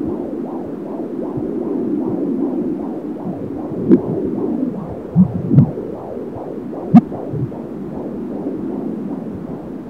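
Fetal heartbeat at 28 weeks of pregnancy, picked up through a handheld AngelSounds fetal doppler as a fast, even pulse of a little over two beats a second. Four loud short thumps between about four and seven seconds in break through it, typical of the baby kicking against the probe.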